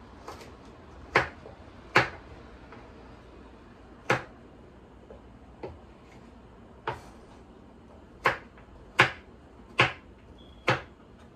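Kitchen knife chopping carrots into chunks on a wooden cutting board: about ten sharp knocks, irregularly spaced, roughly one a second.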